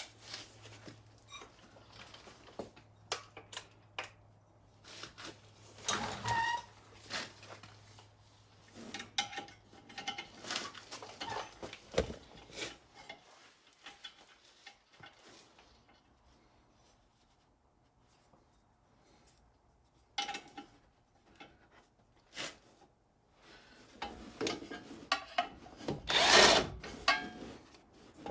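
Hand tools clinking and scraping on metal as the lower ball joint bolt is tightened on a car's front suspension knuckle: irregular knocks and rubs, a quiet stretch midway, then a louder cluster of knocks near the end.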